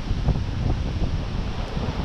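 Wind buffeting the microphone in uneven low gusts over the steady wash of ocean surf.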